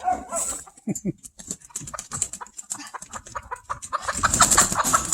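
Chickens clucking, a series of short notes falling in pitch, bunched about a second in and again near the end.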